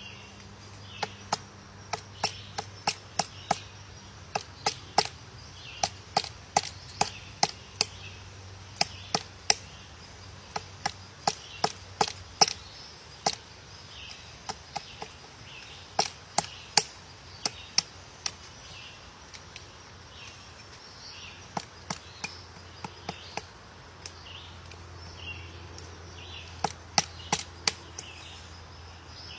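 Woodpecker pecking at wood: single sharp taps at an uneven pace, a few a second, with short pauses between runs of taps.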